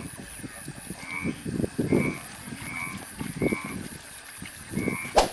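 Frogs croaking in a flooded rice paddy: low, honking calls come and go over a short high chirp that repeats steadily about every 0.7 seconds. A sharp click about five seconds in.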